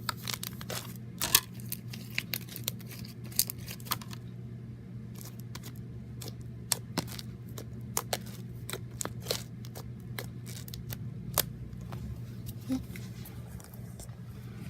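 Slime being handled and squished, giving irregular sharp clicks and crackling pops over a steady low hum.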